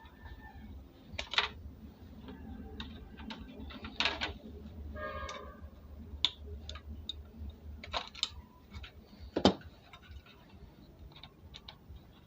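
Phillips screwdriver undoing a screw that holds the IC on a car amplifier board: scattered light clicks and taps, with the sharpest click about nine and a half seconds in.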